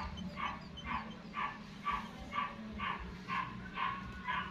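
A dog barking over and over in the background, about two short barks a second at an even pace, with a steady low hum underneath.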